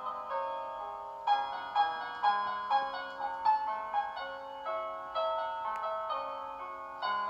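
Background piano music: a melody of single struck notes over held lower notes.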